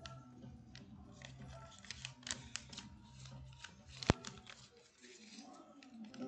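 White paper wrapper crinkling and rustling as it is handled and pulled open by hand, with one sharp, loud click about four seconds in.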